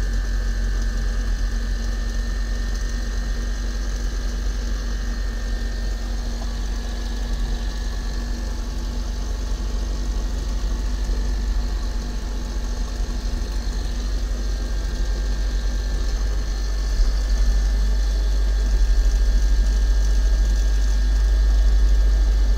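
Car alternator converted into a delta-wound permanent-magnet brushless motor, spinning up to a few thousand RPM on its speed controller: a steady high whine over a low hum, a little louder in the last few seconds. It runs with a bit of vibration from some imbalance in the rotor.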